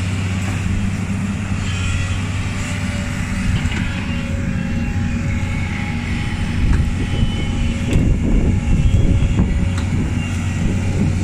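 Heavy diesel excavator engines running steadily with a low hum, growing louder and rougher for a few seconds after the middle.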